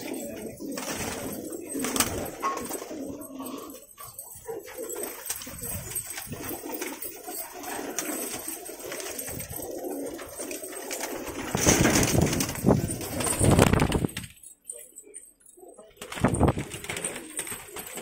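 A loft full of domestic fighter pigeons cooing together in a continuous low murmur. A loud rustling flurry starts about twelve seconds in and lasts a couple of seconds, then the sound briefly drops away.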